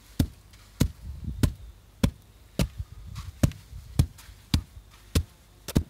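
Homemade wooden hand tamper, a post on a board foot, thudding down on wet sand about ten times at a steady pace of under two strikes a second, compacting the sand base of a paving-slab path.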